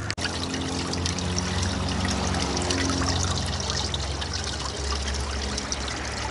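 Flush water trickling and splashing from an outboard's cooling system, with a steady low hum underneath.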